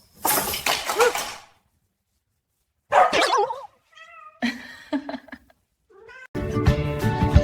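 A cat meowing and yowling in several separate calls, one of them wavering up and down in pitch. Music with a beat starts near the end.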